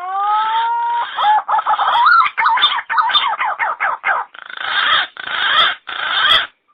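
Recorded green pigeon (punai) calls played as a bird lure: long rising whistled notes, then a quick run of warbling, wavering notes and rougher chattering calls, cutting off abruptly near the end.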